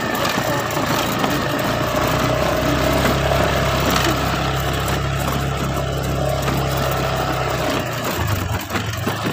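Small motorcycle engine running steadily under way, with the rush of riding. Its note shifts slightly near the end.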